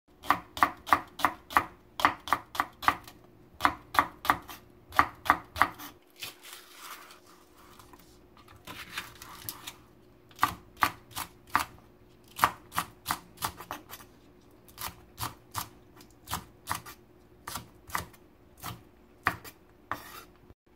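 Chef's knife slicing a scallion into thin rounds on a wooden cutting board: sharp knife strikes on the board at about three a second, in runs. The strikes pause for about four seconds around six seconds in, where there is a softer rustling noise.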